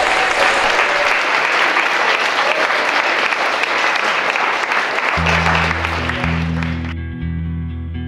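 Audience applauding. About five seconds in, instrumental music with a steady bass line comes in under it, and the applause cuts off abruptly shortly after, leaving the music.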